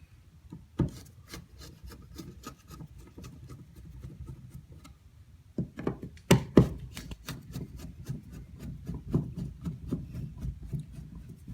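Scraping, rubbing and small clicks of an old smoke detector's mounting plate being worked loose and pulled off, with a few sharper knocks about a second in and around six seconds in.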